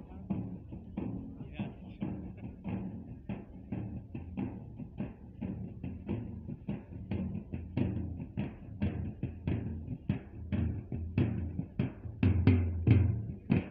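Large hand-held drums beaten in a steady rhythm, about three beats a second, getting louder near the end.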